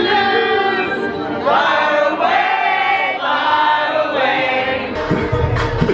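A group of voices singing together in long held phrases. A low rumble comes in near the end.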